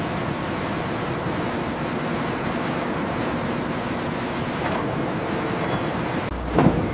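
Steady roar of sawmill machinery, with a brief louder clatter near the end.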